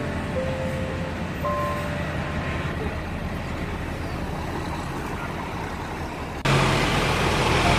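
Diesel engine of a Citybus double-decker bus running as it drives slowly past and on through the terminus, over steady traffic noise. About six and a half seconds in, the sound jumps abruptly louder.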